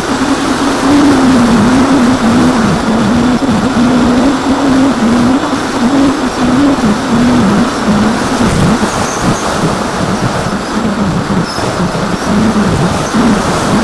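Electric motor and propeller of an AXN foam RC plane in flight, recorded by the onboard camera: a steady buzz whose pitch wavers with the throttle, under heavy wind rush on the microphone.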